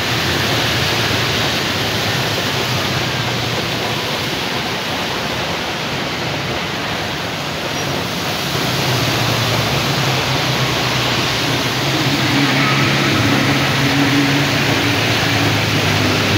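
Steady hiss of rain and tyres on a wet road, with motor scooters passing. From about halfway, an engine's hum comes up and grows a little louder.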